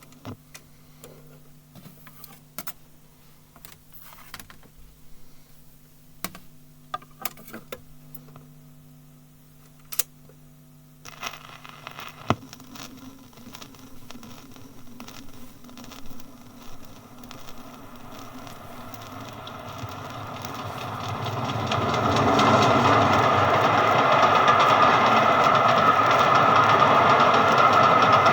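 A train approaching, archive recording: a faint rumble starts about eleven seconds in and swells steadily until the train is loud over the last few seconds. Before it come only scattered faint clicks and crackles over a low hum.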